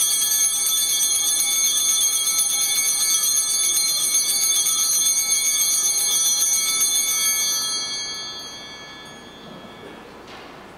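Altar bells rung continuously as the consecrated host is elevated at Mass, a bright shimmering jingle that starts suddenly, holds steady for about seven seconds and then dies away. The ringing marks the elevation after the consecration of the bread.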